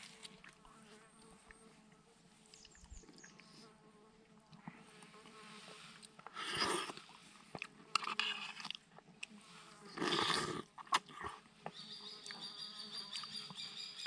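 Flies and insects buzzing steadily, broken by a few short, loud bursts of eating noise about halfway through. A high, steady insect trill comes in near the end.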